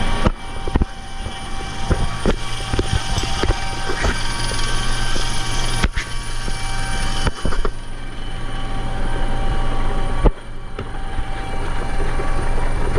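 Helicopter running, a steady engine and rotor noise with a low hum, broken by a few sudden short drops.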